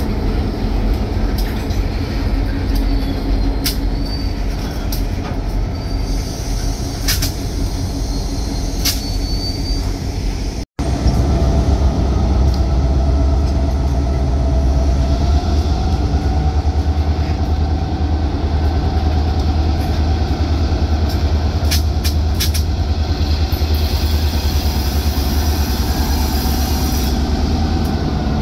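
R.J. Corman diesel freight train passing close by: a steady low engine rumble and steel wheels rolling over the rails, with scattered clicks and a few brief faint high wheel squeals. A momentary dropout about a third of the way in is followed by a heavier low rumble as the locomotives go by.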